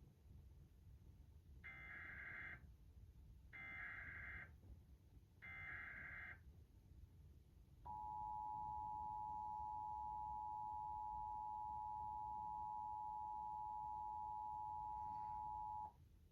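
Emergency Alert System broadcast tones opening a Required Monthly Test: three one-second bursts of SAME header data tones about a second apart, then the two-tone attention signal, a steady chord of two pitches (853 and 960 Hz) held for about eight seconds and cut off suddenly.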